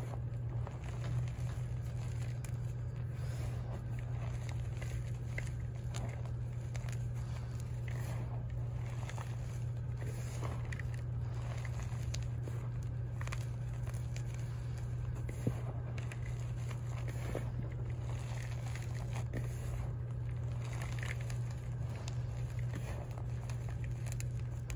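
Hands crushing and crumbling chunks of pink and purple dyed chalk into powder, with soft, irregular crunching and crackling throughout, over a steady low hum.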